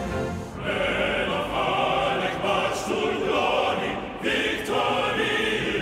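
Music with a choir singing, coming in about half a second in, with a brief break between phrases about four seconds in.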